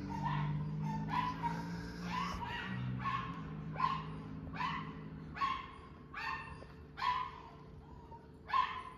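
A dog barking over and over, about two barks a second at first. The barks then slow and grow fainter in the second half, with a pause before a last bark near the end.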